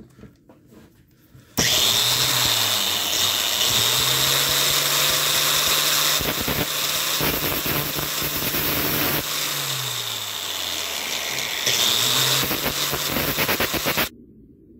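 Angle grinder with a cut-off disc running and grinding the end of a steel airsoft gearbox main spring. It is finishing off the spring's unfinished end so it will not catch on the piston. The grinder starts about a second and a half in, its note sags for a moment about ten seconds in, and it cuts off abruptly near the end.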